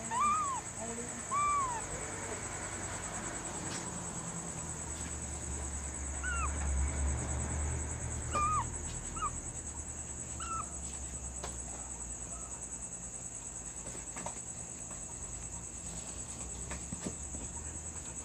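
A kitten mewing: short high cries that rise and fall in pitch, two near the start and four more between about six and ten seconds in, over a steady high-pitched hum.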